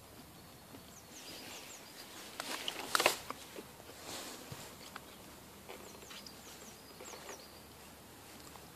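Faint outdoor ambience with a few short, high, falling bird chirps. About three seconds in there is a brief burst of sharp crackling clicks, the loudest moment.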